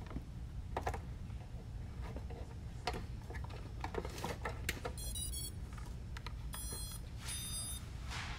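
A few light clicks of parts being handled, then the quadcopter's motors play the ESC power-up beeps as the battery is connected: a quick run of tones followed by two separate beeps. Right at the end a hiss of static begins.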